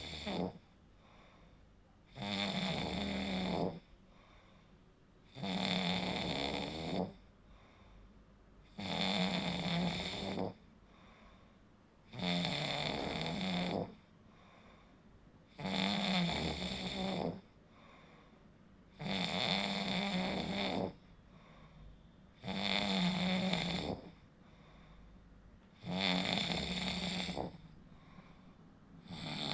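A person snoring in a steady rhythm, a loud snore roughly every three and a half seconds, each lasting about a second and a half with quiet breaths between. The throat tissues vibrate as the airflow is partly blocked in sleep.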